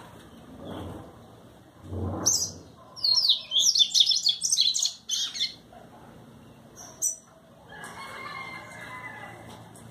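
Papa-capim seedeater singing in quick bursts of rapid, high chirping notes, strongest from about three to five and a half seconds in, with softer fluttering sounds that fit wing flaps.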